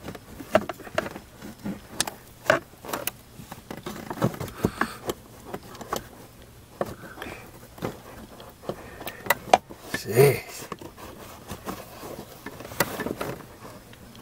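Screwdriver prying at plastic push-pin fasteners in dashboard trim: irregular clicks, taps and scrapes of metal on plastic, with one brief louder sound about ten seconds in.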